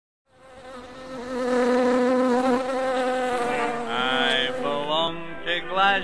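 Bee-like buzzing that fades in and holds a steady, wavering drone. Past the middle it breaks into short rising glides in pitch.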